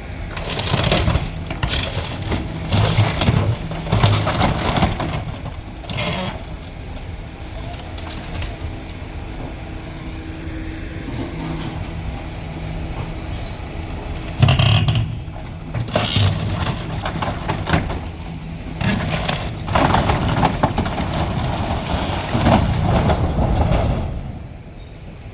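Demolition: material being crushed and broken in repeated crunching, cracking bursts over an engine running steadily.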